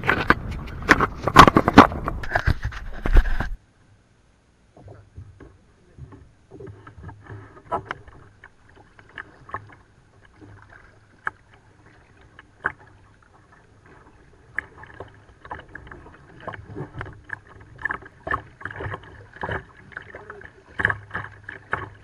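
Double-bladed kayak paddle strokes splashing in sea water. Loud water splashing close up for the first few seconds, which cuts off suddenly; then quieter, irregular paddle splashes and drips that grow busier in the second half.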